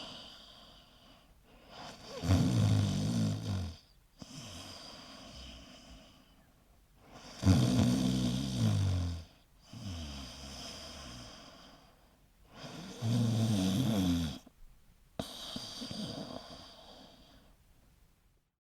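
Snoring in a steady breathing cycle: three loud snores on the in-breath, about five and a half seconds apart, each followed by a softer, longer breath out.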